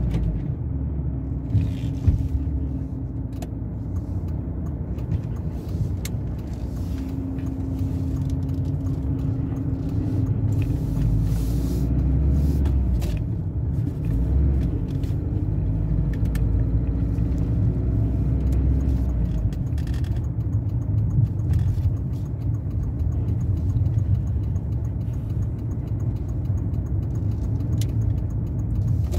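Car driving along a road, heard from inside the cabin: steady low engine and road rumble, with a low hum that grows stronger through the middle stretch and a few light clicks.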